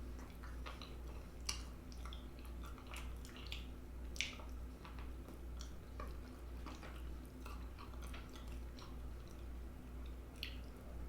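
A person chewing gravy-soaked bread with irregular wet smacks and clicks of the mouth.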